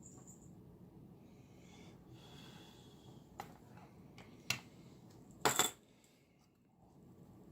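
A soft hiss, then a few sharp clicks and a short louder clatter of small hard objects a little past halfway, as small tools and parts are handled and set down on a work surface during wiring and soldering.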